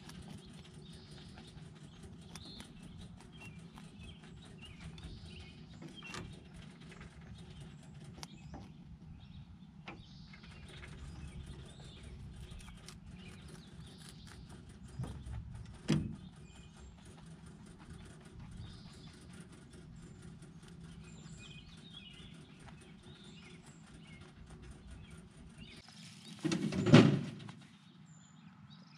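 Rabbits munching carrots and greens from a hutch feeder close to the microphone, with small scattered clicks and knocks. A sharp knock comes about halfway through, and a louder bump and scuffle near the end is the loudest sound.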